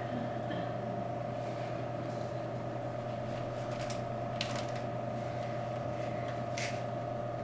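Stiff poster paper being lifted and turned over on an easel, giving a few brief rustles, over a steady hum.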